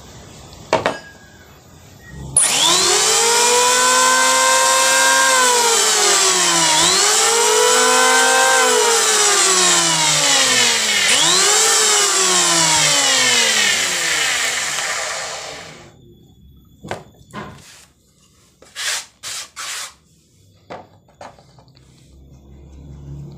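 Electric hand planer (Bull) switched on three times: each time the motor whine rises in pitch, holds, then falls as the trigger is let go, the last run-down lasting about four seconds before it stops. The sound is rough and drags at the end of the spin-down, which the owner puts down to dry, loose bearings. A few knocks of the tool being handled follow.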